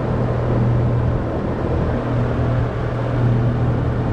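A steady low mechanical hum over a constant rumble of noise, like a motor running without change.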